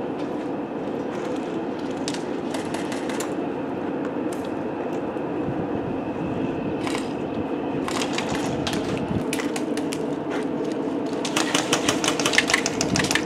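Airsoft guns firing: scattered sharp shots over a steady background hum, then a rapid run of shots in quick succession near the end, like an electric airsoft rifle on full auto.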